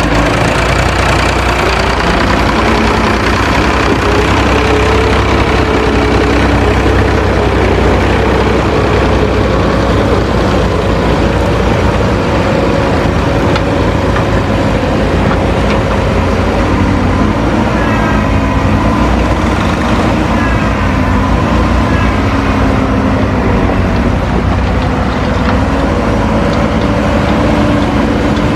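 Heavy diesel engines of earthmoving machinery running under load, the revs rising and falling as the machines work.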